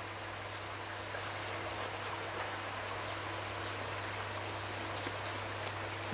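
Steady hiss with a constant low hum, and faint soft chewing of a mouthful of sushi.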